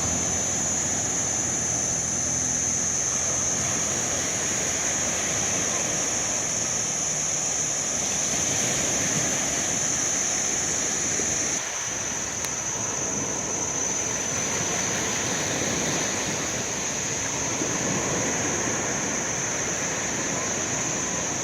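Sea waves washing onto the shore: a steady rush of surf, with a steady high-pitched whine over it. A low engine hum fades out in the first few seconds.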